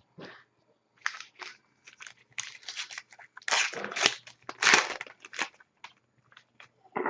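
Foil wrapper of a trading card pack crinkling and tearing as the pack is opened by hand: a run of short crinkling rustles starting about a second in, loudest around the middle.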